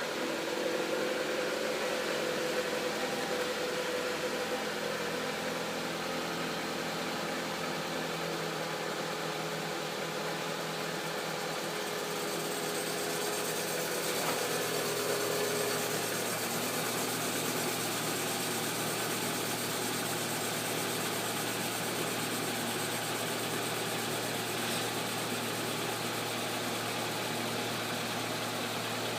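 Lada Kalina 2 engine running steadily at idle, with an extraneous noise the owner wants to pin down. A thin high whine joins about twelve seconds in.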